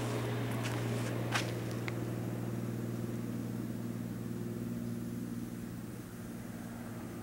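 Steady low hum of a vehicle engine running, easing off slightly near the end, with a couple of footsteps crunching on gravel in the first two seconds.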